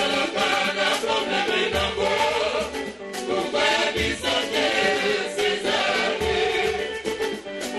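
A live Congolese band: several male singers singing together into microphones, backed by electric guitar and a drum kit.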